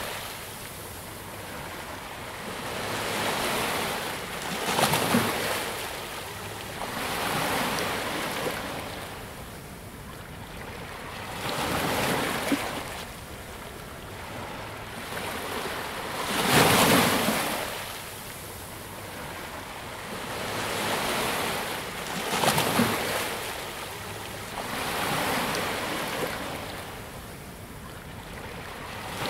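Ocean waves breaking and washing ashore in steady surges every few seconds, one louder break about two-thirds of the way through.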